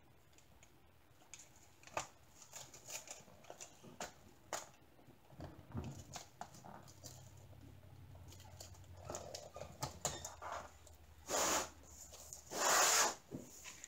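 Hands shifting a framed diamond painting under its clear plastic cover: faint scattered taps and crinkles of the plastic sheet, then two louder rustles near the end.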